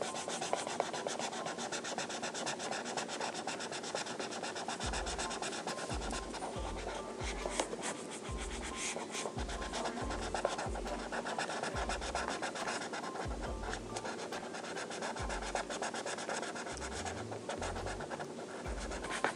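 Felt-tip marker scratching and rubbing back and forth on paper as it colours in a broad area. Background music with a low bass line comes in about five seconds in.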